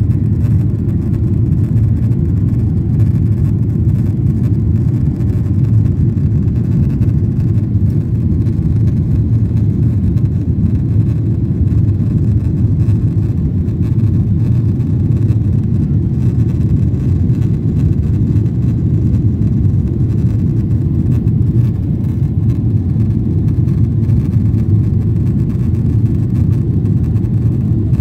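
Steady low rumble of an airliner's cabin in flight: engine and airflow noise heard from a window seat as the plane climbs.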